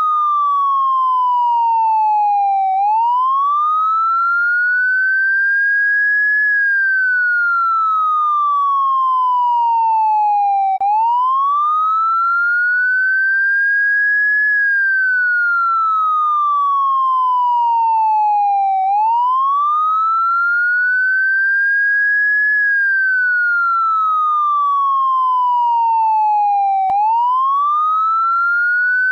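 Electronic police siren tone gliding in a slow, even cycle: it falls steadily from high to low over about four seconds, then sweeps back up more quickly, repeating about every eight seconds.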